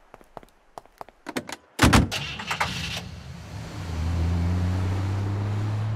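Light footstep clicks, then a car door slams shut about two seconds in, followed by a police car's engine starting and running steadily as the car pulls away.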